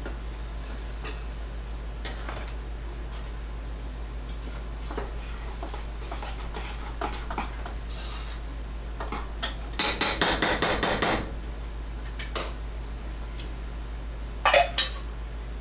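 Metal kitchen utensils clinking and scraping against pots and dishes on the stove, over a steady low hum. About ten seconds in there is a quick run of rapid metallic taps lasting about a second, and two more sharp clinks come near the end.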